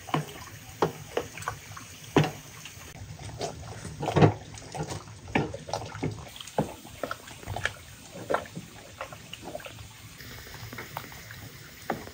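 Apricots in syrup boiling in a large aluminium pot on a wood-fired stove: irregular bubbling pops, a few louder than the rest.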